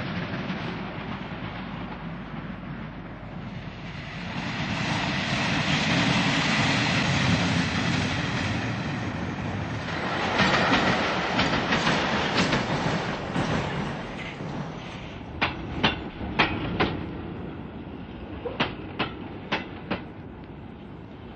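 Train running on jointed track: a rushing noise of wheels and carriages swells about four seconds in, then sharp clickety-clack beats of wheels crossing rail joints, often in pairs, take over in the second half.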